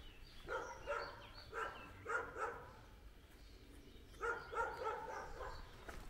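A dog barking in three bouts of quick repeated barks, the last bout about four seconds in and the longest.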